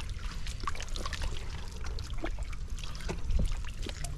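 Water trickling and splashing with many small scattered clicks and taps, over a steady low rumble.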